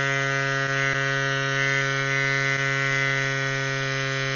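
CYCPLUS AS2 Pro battery-powered mini electric bike pump running steadily, a constant pitched motor drone, as it inflates a road bike inner tube through the high 40s PSI toward its preset 60 PSI auto-stop.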